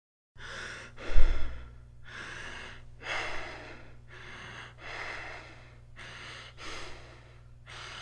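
Kussmaul breathing: a person taking deep, rapid breaths, a full inhalation then a full exhalation, a rush of air about every second without pause. This is the breathing of acidosis such as diabetic ketoacidosis. A low thump about a second in, over a faint steady hum.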